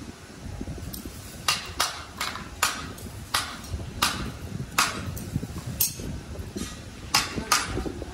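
A hammer striking metal, about ten sharp blows at an irregular pace, some close together in pairs, over a steady low rumble.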